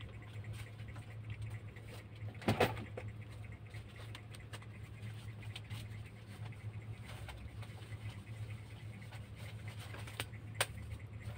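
Quiet room with a faint steady low hum, a brief knock about two and a half seconds in and a sharp click near the end.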